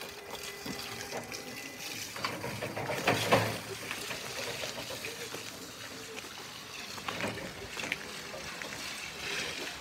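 Toyota 6FB18 battery-electric forklift driving across wet pavement: its tyres hiss and swish on the wet surface, with a brief electric drive whine fading in the first couple of seconds and a louder burst of noise about three seconds in.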